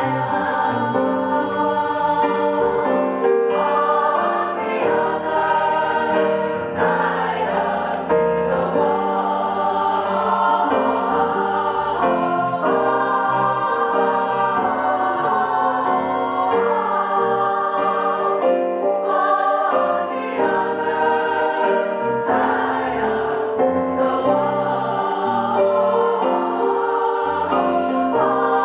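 A choir singing in harmony, with held chords that shift from one to the next.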